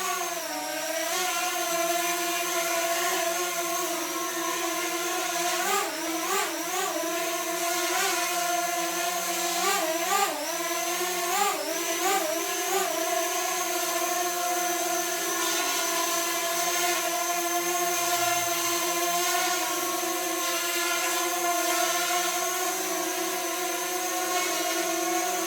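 Drone's electric motors and propellers spinning up and running with a steady whine, the pitch wavering up and down a few times around the middle as the throttle changes.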